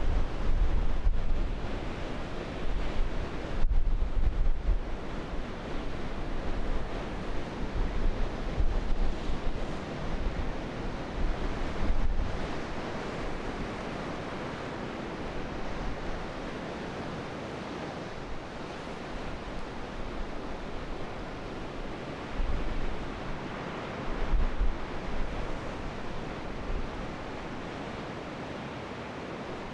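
Steady wash of sea waves, with wind buffeting the microphone in gusts that are strongest through the first dozen seconds and again a little past twenty seconds in.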